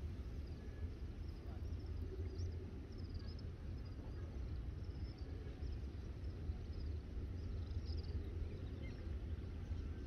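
Outdoor ambience: a steady low rumble with faint, short high-pitched chirps scattered throughout.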